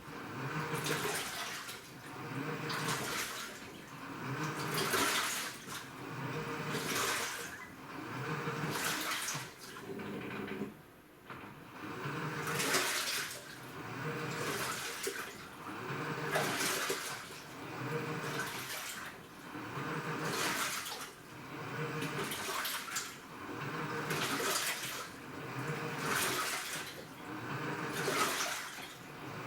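AQUA top-loading washing machine agitating its load: the direct-drive inverter motor hums as it swings the pulsator back and forth, and the water sloshes in regular surges about every two seconds, with a short lull about eleven seconds in.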